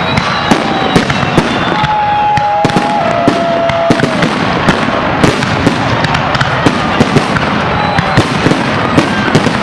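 Fireworks salute: a dense, continuous run of sharp bangs and crackling, with a few drawn-out whistling tones that slide downward.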